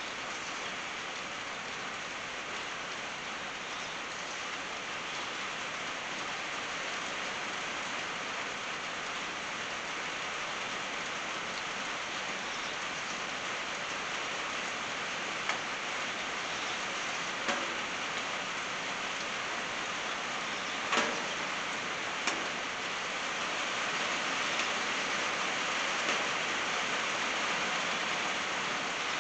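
Steady rain on a tin roof, an even hiss of drops on the metal that swells a little near the end. A few sharp ticks stand out in the second half.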